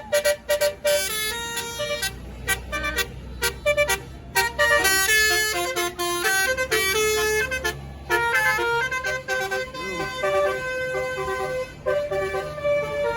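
A bus's basuri telolet musical horn plays a quick melody of stepped horn notes throughout. A diesel engine runs low underneath for several seconds in the middle.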